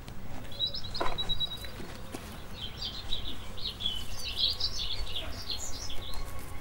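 Songbirds chirping and trilling in woodland: a high trill early, then a busy run of quick twittering chirps, over a steady low rumble of outdoor ambience. There is a single soft knock about a second in.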